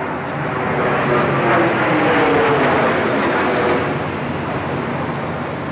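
Jet airliner flying low overhead at high speed, a Boeing 767's engines: the roar swells to a peak about two to three seconds in, falling in pitch as it passes, then eases off.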